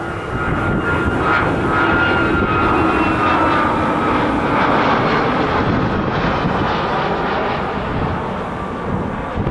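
Jet airliner passing close on its landing approach: a loud, steady engine roar with a faint whine that drifts slightly lower in pitch.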